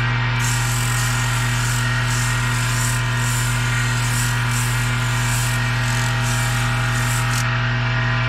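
Lathe motor running with a steady hum, spinning a metal saw handle at about 2650 RPM. Sandpaper hisses against the turning handle in strokes that start about half a second in and stop briefly near the end.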